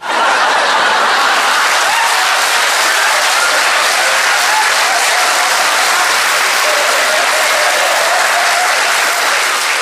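Audience applauding in response to a joke's punchline. The clapping starts abruptly, holds steady and dies away near the end.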